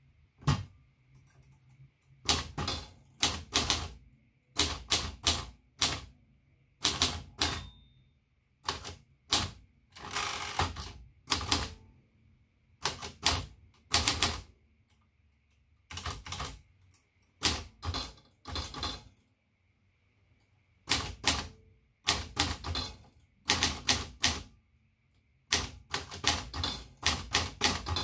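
1967 Facit 1620 manual typewriter being typed on. Its typebars strike in quick runs of clicks, word by word, with short pauses between the runs.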